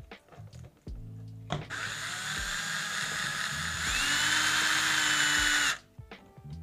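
Power screwdriver running for about four seconds, driving a screw into a 3D-printed plastic gearbox cover. Its motor whine steps up in pitch partway through and cuts off suddenly.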